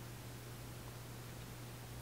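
Quiet room tone: a faint steady low hum under an even hiss, with nothing else happening.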